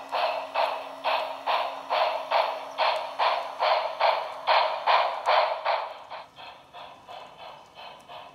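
Steam chuffing from the sound system of a Broadway Limited Santa Fe Blue Goose 4-6-4 model locomotive, an even beat of about two to three chuffs a second. The chuffs get quieter about six seconds in.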